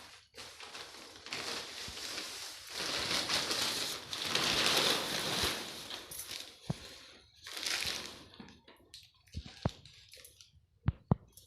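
Packaging being handled and opened, crinkling and rustling, loudest in the middle, with a shorter rustle later and a few sharp clicks near the end.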